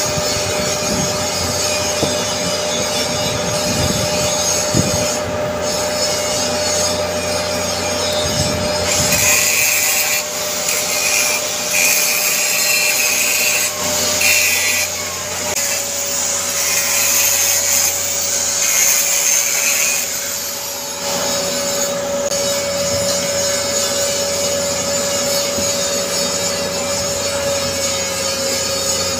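Stick (SMAW) welding arc crackling and hissing on a carbon steel pipe during the capping pass. It goes in spurts with short breaks and is loudest from about a third of the way in to about two-thirds, over a steady machine hum.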